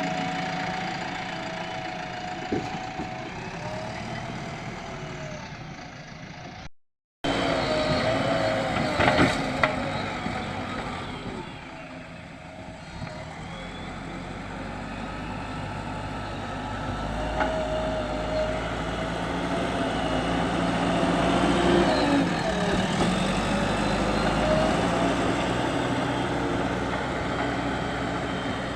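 JCB 3DX backhoe loader's diesel engine running under load, with a wavering whine rising and falling over the engine hum and a few sharp knocks about nine seconds in. The engine grows louder with a deeper rumble in the second half, and the sound drops out briefly about seven seconds in.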